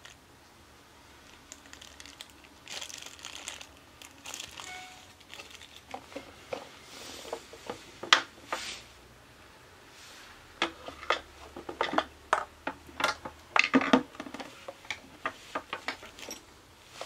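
Handling noises from a tyre repair kit being laid out. First a small plastic zip bag crinkles, then comes a run of sharp clicks and knocks as the compressor's hard plastic body and its air hose with a metal chuck are moved and set down on a hard surface.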